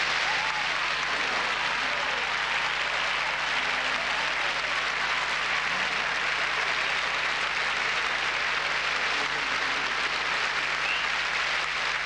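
Large audience applauding steadily and without a break.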